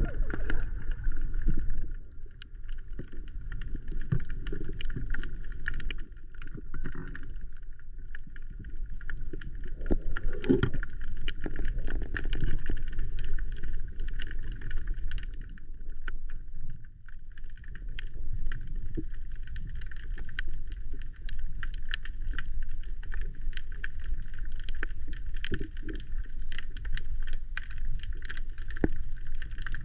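Muffled water noise with a steady low rumble and many scattered faint clicks, as picked up by a camera underwater while spearfishing in a mangrove.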